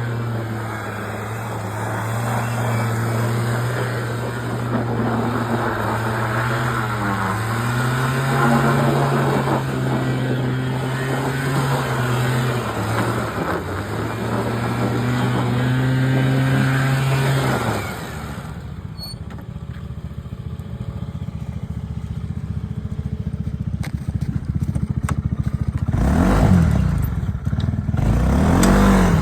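ATV engine running at steady revs, its pitch wavering up and down, then dropping to a lower, pulsing near-idle about eighteen seconds in. Near the end it revs up and falls back.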